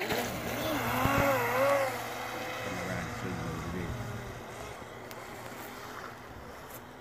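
Aquacraft Revolt30 RC speedboat running across a lake: its electric motor and the hull's spray are loudest in the first two seconds, with a wavering pitch, then fade steadily as the boat moves away.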